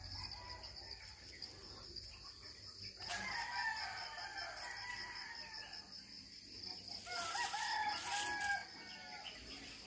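Rooster crowing twice, once about three seconds in and again about seven seconds in.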